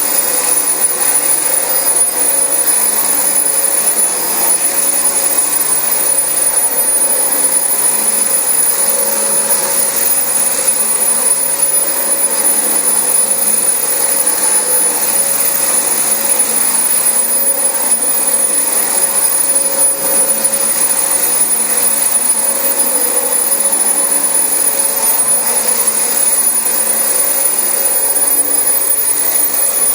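Dyson DC25 upright vacuum cleaner running steadily with a high whine over its motor and airflow noise.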